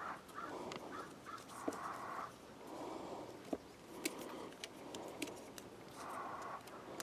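Faint clicks and light rattling from handling the small parts of the power sliding door's cable and spool assembly, with a few sharper ticks scattered through.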